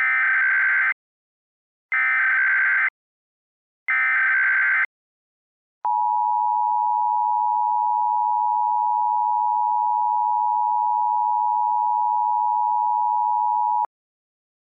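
Emergency Alert System encoder tones. First come three bursts of SAME header data, each about a second long and two seconds apart. Then the two-tone EAS attention signal holds steady for about eight seconds and cuts off. Together they open a National Periodic Test alert.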